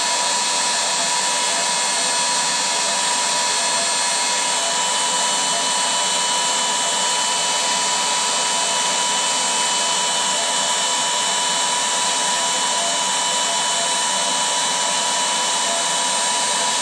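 Electric air pump running steadily while inflating an inflatable: an even rush of air with a steady high whine, its pitch shifting slightly about four and a half seconds in.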